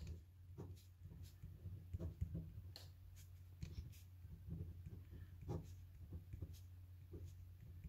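Pen writing on paper: faint, irregular scratches and light taps of the pen strokes as equations are written out, over a low steady hum.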